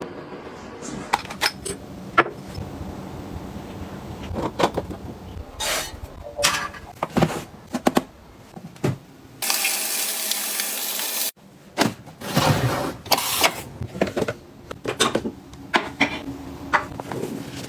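Kitchen items being handled and set down: scattered clicks and knocks throughout, with a steady hiss lasting a little under two seconds about halfway through.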